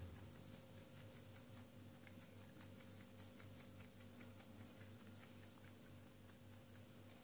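Faint, quick crunching clicks of fresh grass being chewed by a pet rabbit and a cat, over a faint steady hum.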